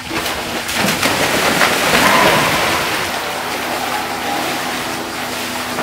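Pool water splashing as artistic swimmers jump in one after another, several splashes in quick succession over the first two seconds, then continued churning of the water.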